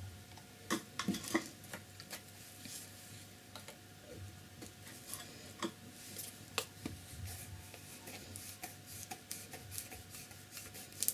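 Scattered light clicks and taps of painting supplies being handled at a ceramic plate palette as a jar of white gouache is closed and moved away, with a cluster of clicks about a second in and single taps after that.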